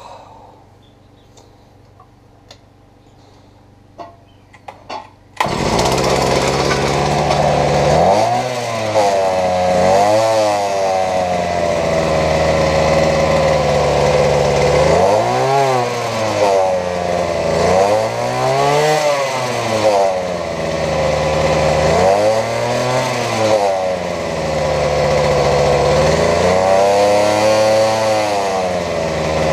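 Earthquake MC43 mini tiller's two-stroke engine, newly fitted with a replacement piston, starts suddenly about five seconds in after a few faint clicks. It then runs loudly, revving up and falling back to idle over and over.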